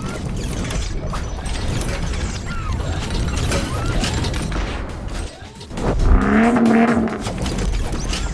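Busy mechanical clattering and ratcheting, with a louder pitched sound between about six and seven seconds in.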